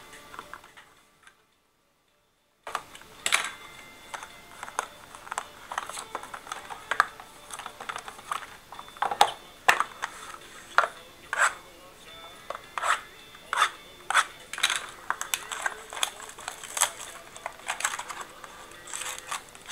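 Cardboard trading-card boxes and their plastic-wrapped packs being handled and opened: an irregular run of clicks, taps and rustles. A brief dropout to silence comes about a second in.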